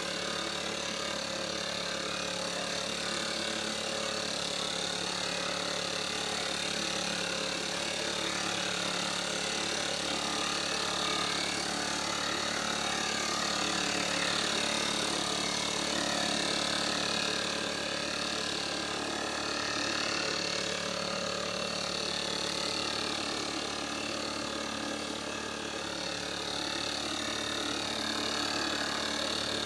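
Two-stroke engine of a backpack mist blower running steadily at a constant pitch, blowing fertilizer granules out through its hose.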